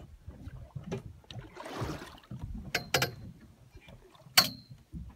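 Three sharp metallic clinks, the loudest about four and a half seconds in and leaving a short ring, over a low rumble of the boat and a brief rushing noise about two seconds in.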